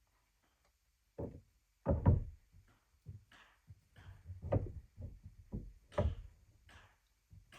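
A series of irregular knocks and thuds, about a dozen, the loudest about two seconds in.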